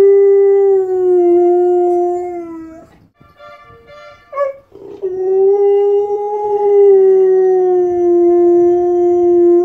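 Siberian husky howling: two long, loud howls, the first sagging slightly in pitch before it stops about three seconds in, the second starting about five seconds in and held steady. A short yip comes between them.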